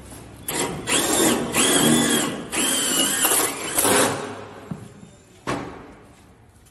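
Cordless impact driver running in several short bursts against a metal door frame, its motor whining up to speed at the start of each burst. A single sharp knock follows about five and a half seconds in.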